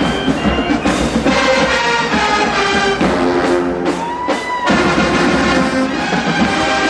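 HBCU marching band brass section playing a loud, held-note passage with drums underneath, with a short upward pitch slide about halfway through.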